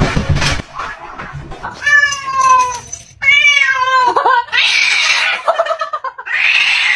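Angry domestic cat yowling in long, wavering, falling calls, broken by two short hisses: a cat's aggressive, jealous display.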